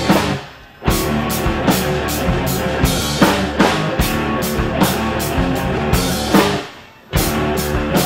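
Live rock band playing an instrumental passage on electric guitars and a drum kit. The band stops short twice, about half a second in and again about six and a half seconds in, and each time crashes back in together on a drum hit.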